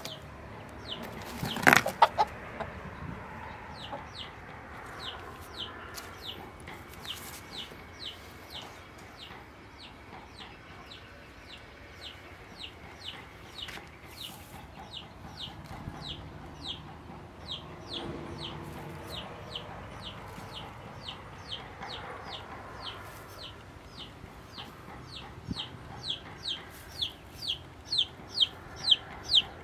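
Chickens clucking, with a short, high, falling peep repeated over and over that grows faster and louder toward the end, reaching about two a second. There is a loud burst about two seconds in.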